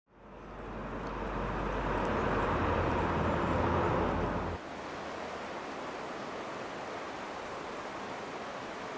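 Low rumble of a distant freight train, fading in and then cutting off abruptly about halfway through, leaving a steady rushing noise.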